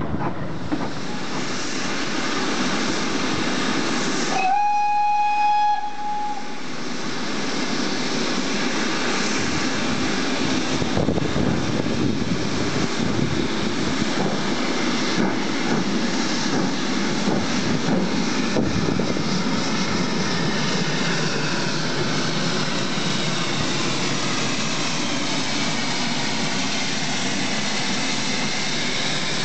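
A steam locomotive whistle gives one steady blast of about a second and a half, about four seconds in. Throughout, there is the continuous hiss and rumble of steam locomotives working at close range, with the GWR 4-4-0 City of Truro passing close by near the end.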